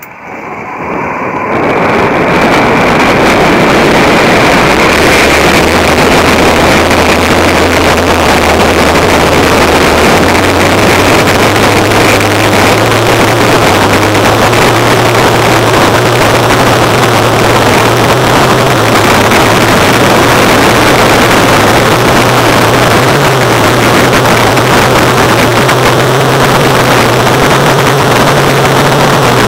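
Wind rushing over the microphone of a paraglider in flight: a loud, steady roar that builds up over the first two seconds after launch, with a low hum underneath.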